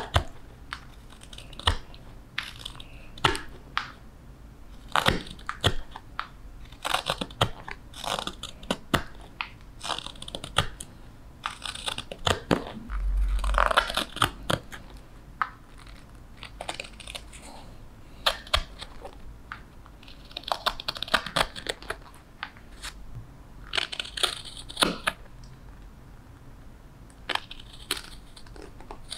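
Hook knife (spoon knife) cutting out the bowl of a wooden spoon: a run of short, crunchy scraping strokes at an uneven pace as shavings peel from the wood, with one longer cut about halfway through.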